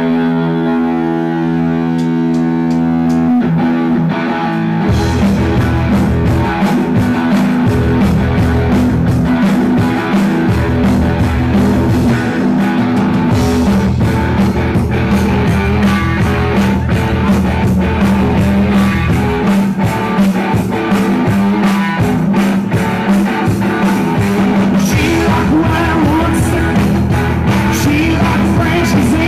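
Live rock band playing loud. A guitar chord rings out for the first few seconds, then the drums and full band come in at about five seconds and play on steadily.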